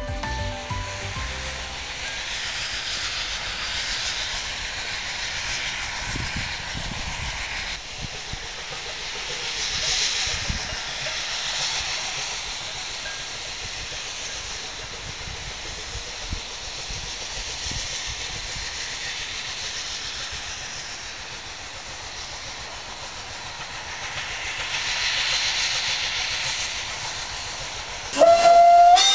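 Swiss HG 3/4 rack steam locomotive working uphill: a steady hiss of steam and exhaust that swells twice. Near the end a loud steam whistle sounds.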